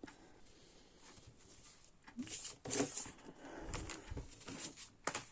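Faint rustling and a few light clicks and knocks of a cross-stitch kit's materials being handled, starting about two seconds in after a moment of quiet.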